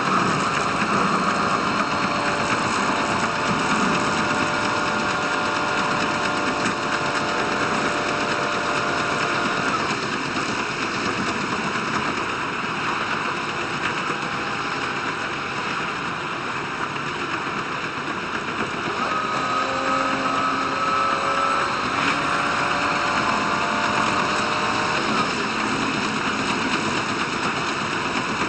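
Diesel railcar running along the line: a steady engine drone and wheel-on-rail noise with faint whining tones that slide a little in pitch, sped up fivefold along with the video.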